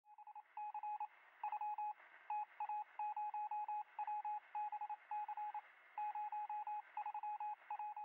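Morse-code beeps: one steady tone keyed on and off in quick short and longer pulses, in irregular groups, over a faint radio-like hiss.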